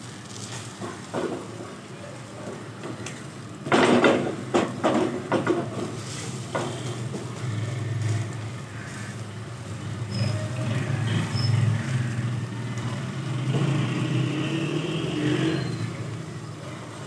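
French toast sizzling in a little oil on a flat non-stick griddle, over a low steady rumble. A slotted spatula knocks and scrapes against the pan as the slices are turned, in a cluster of sharp knocks about four to six seconds in.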